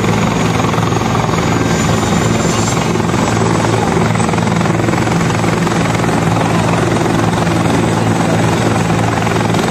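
Helicopter running on the ground with its main rotor turning: a loud, steady turbine-and-rotor hum with a thin high turbine whine that edges up in pitch about two to three seconds in.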